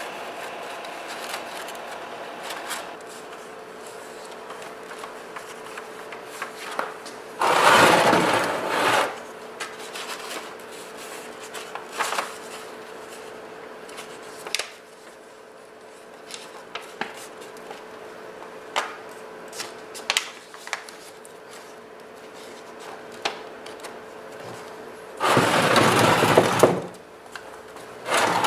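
A sheet of paper rustling and crinkling as it is pressed and creased over the edges of a 3D printer's aluminium frame to trace a template, with two loud bursts of crumpling and scattered light taps and clicks. A faint steady hum runs underneath.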